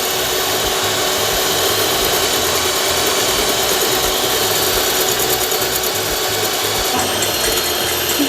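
Electric hand mixer running steadily, its beaters whipping egg whites in a bowl toward a fluffy foam. The motor's steady hum changes about seven seconds in.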